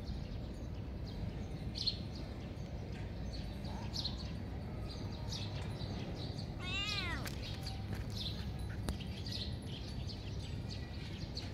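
Kitten meowing once, a single call that rises and then falls in pitch, about two-thirds of the way through. Under it run a steady low outdoor rumble and short high bird chirps every second or two.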